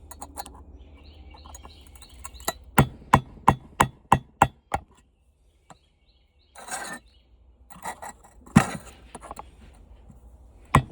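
Hammer striking a screwdriver to drive the bearing seat out of a floor fan's motor housing, metal on metal: a quick run of about six blows, then a short scrape and one more hard blow.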